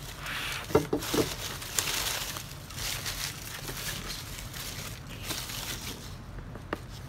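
Dry leaves rustling and crinkling as hands rummage through them in a cardboard box, louder in the first few seconds, with a few short knocks about a second in.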